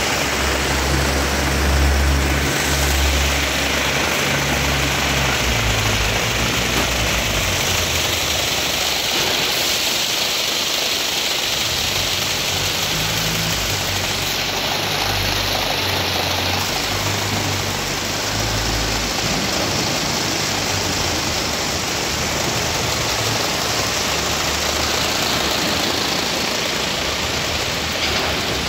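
Braiding machines running: a steady, even mechanical noise that holds without a break.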